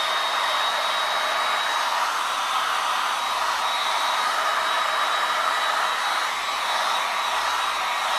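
Handheld hot-air blower running steadily: a rush of air with a steady high whine from its fan, blown over wet poured acrylic paint to pop the surface bubbles.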